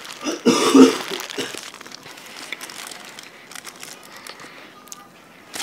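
McDonald's paper wrappers and packaging crinkling and rustling as they are handled, loudest about half a second in, then small crackles and clicks.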